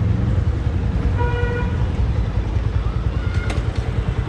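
Steady engine and wind rumble of a Yamaha FZ motorcycle on the move, with a vehicle horn honking once, briefly, about a second in.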